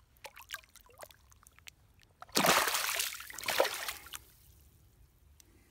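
Shallow lake water splashing as a largemouth bass is let go from a hand and kicks away: faint drips and trickles, then a burst of splashing lasting about two seconds, loudest near its end.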